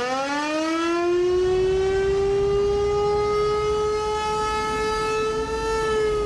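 Tornado warning siren winding up to a steady high wail, held for several seconds, then starting to wind down in pitch near the end.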